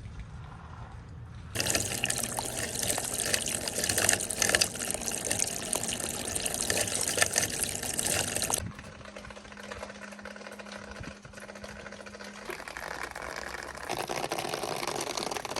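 Water rushing and splashing steadily for several seconds, then cutting off abruptly; after that a quieter stretch with a steady low hum, and a softer rush of water near the end.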